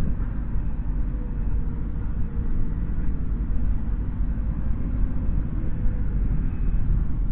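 Wind buffeting a small camera's microphone: a steady low rumble.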